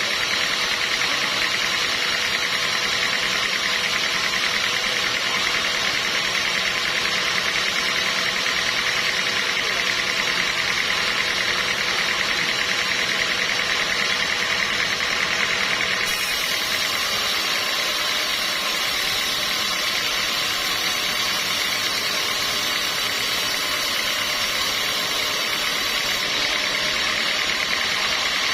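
Sawmill machinery running steadily, a continuous mechanical noise with a faint hum. The sound changes slightly a little past halfway.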